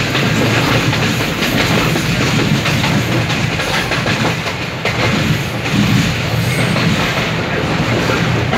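Passenger train coach running on the rails, heard from inside the carriage: a loud, steady rumble of the wheels with irregular clacks over the rail joints.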